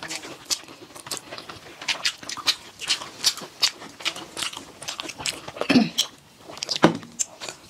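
Close-up eating sounds: wet chewing and lip smacking as two people eat fried rice by hand, several sharp clicks a second. Louder gulps come near the end as one of them drinks from a steel tumbler.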